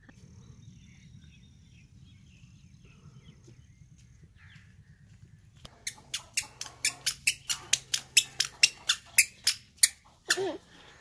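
Faint bird chirps over a low outdoor rumble. From about six seconds in comes a run of sharp, even footsteps on a dirt path, about four a second. A brief voice is heard near the end.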